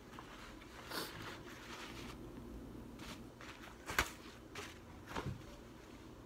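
Quiet eating sounds: pizza being chewed, with paper-napkin rustling and a few soft clicks and knocks, the sharpest about four seconds in.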